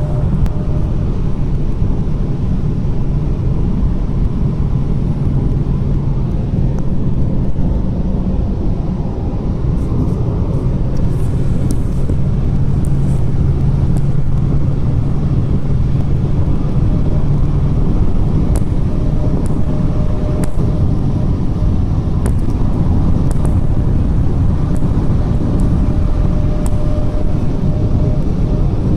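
A Proton Inspira at high speed: a steady low drone with a humming tone over the road rumble, strongest through the middle stretch. The owner suspects a worn passenger-side wheel bearing.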